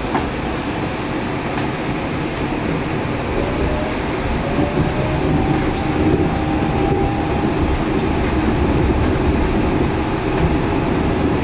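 Yurikamome 7300 series rubber-tyred automated guideway train running, heard from inside the car: a steady rumble of the running gear, with a faint rising motor whine between about three and seven seconds in as it picks up speed.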